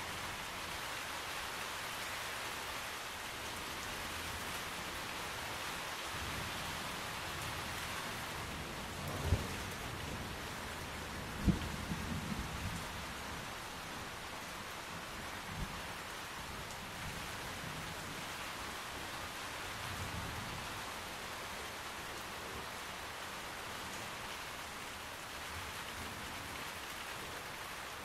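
Steady rain heard from beneath a canopy, a constant hiss of falling drops. A few sharp low thumps and low rumbles of thunder come about a third of the way in, with another low rumble later.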